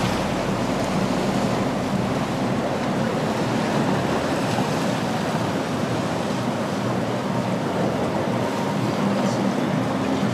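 Steady rushing of wind and harbour water on the microphone, with a faint low hum underneath.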